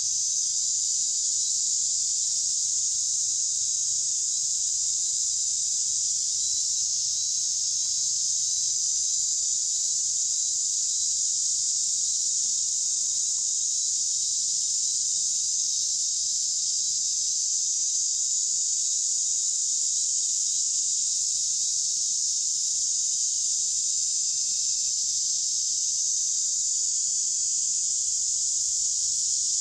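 Dense insect chorus: a steady, high-pitched drone that holds at an even level.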